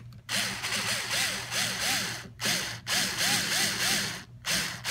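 A screwdriver turning one of the jet-pump housing's mounting screws in the plastic, a grinding rasp with a regular squeak about three to four times a second, in three runs with short pauses between, the last near the end.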